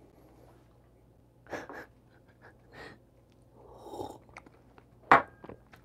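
Coffee being sipped from a small tasting glass: a few short breathy sounds, then a longer slurp about four seconds in. A sharp tap, the loudest sound, comes just after five seconds.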